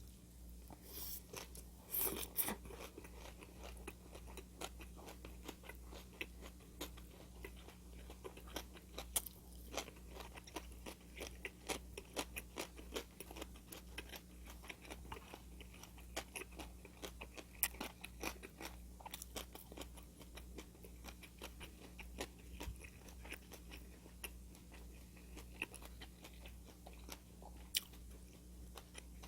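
A person chewing and crunching food close to the microphone, many small crisp crunches and bites in a row, over a faint steady electrical hum.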